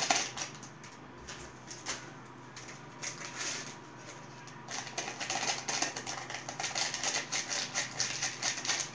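Small vanillin sachets crinkling and being tapped with the fingers as they are shaken empty over a bowl of flour. There are scattered light clicks at first, and the crackling grows busier about halfway through, when the second sachet is handled.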